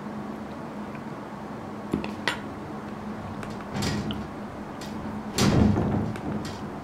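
Metal spoon clicking against a ceramic bowl, with small knocks of handling on a table. The loudest is a brushing knock about five and a half seconds in, all over a steady low hum.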